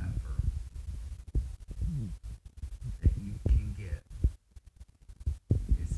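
Low knocks and rumble from a handheld phone's microphone being moved about, with a man's voice making two brief murmured, hesitant sounds. The sound drops out in short gaps about two-thirds of the way through.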